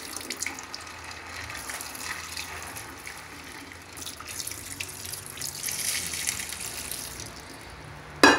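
Hot water mixed with dish detergent running into a clogged kitchen sink and down the drain, a steady splashing hiss that swells midway. The water is going down, a sign the clog is clearing. A single sharp knock near the end.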